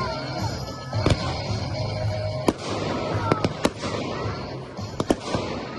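Professional category F4 fireworks display: about six sharp shell bursts, two pairs of them in quick succession, over music playing throughout.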